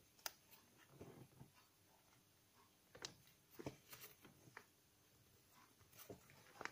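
Faint crinkling and rustling of origami paper being folded and pinched by hand, with a few short, sharp crackles scattered irregularly through.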